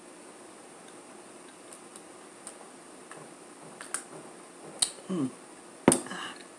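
Quiet at first, then a few sharp clicks, and near the end a drinking glass set down on a stone countertop with a loud knock and a brief ring.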